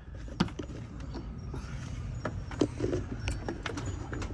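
Camera handling noise: scattered small clicks and knocks over a low rubbing rumble as the camera is unclipped from a shirt and set up in a new position.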